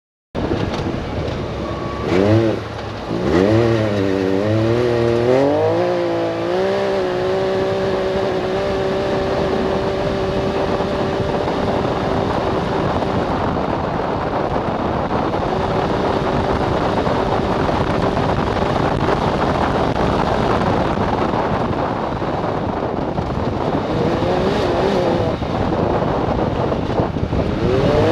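Can-Am Maverick X3 DS's turbocharged three-cylinder engine accelerating hard through a Yoshimura exhaust with cat-delete pipe and a tri-pipe tail mod meant to raise the exhaust note's pitch. The pitch climbs unevenly over the first few seconds, then holds at a steady rpm while speed builds. It dips and recovers briefly near the end as the throttle is eased and reapplied, over a steady rush of road and wind noise.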